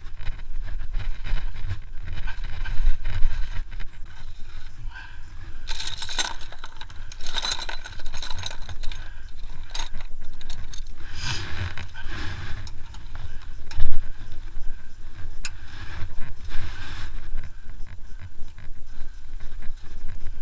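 Metal wrenches and sockets clinking, rattling and scraping as they are handled in a plastic tool case, in clusters with a few sharp knocks, over a low steady rumble.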